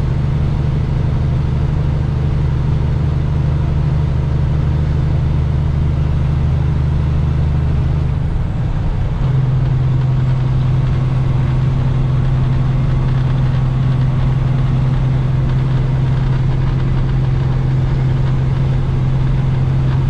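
Diesel engine of a heavily loaded semi truck pulling steadily under load, heard from inside the cab. About eight seconds in the drone briefly dips and breaks, then settles into a new steady note, typical of a gear change while working up to highway speed.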